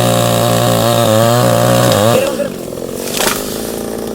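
Chainsaw running at full throttle, then dropping back to idle about two seconds in, with its pitch falling away. A single sharp crack follows about a second later.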